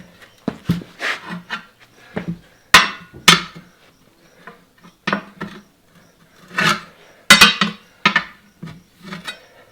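Metal hand tools repeatedly clanking and scraping against a steel wheel rim while a backhoe tire's bead is worked onto it, in irregular knocks with short ringing tails, the loudest about three seconds in and again past seven seconds.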